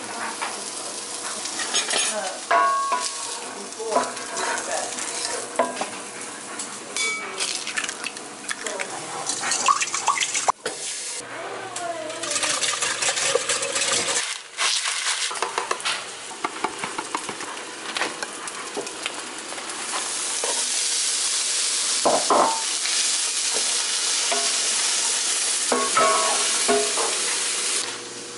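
Sausage pieces and pecans sizzling in a cast iron skillet, with scrapes and clinks of a utensil stirring them. A steadier sizzle runs through the last third and stops just before the end.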